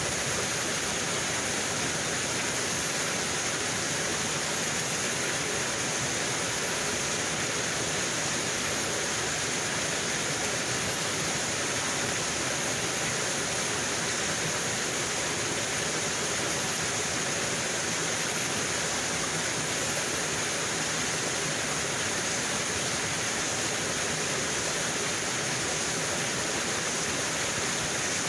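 Steady rushing of a rocky mountain stream, water running over stones and small rapids.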